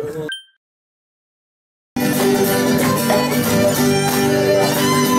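A speech tail cuts off, then silence. About two seconds in, live acoustic music starts: acoustic guitars playing with a violin holding sustained notes over them.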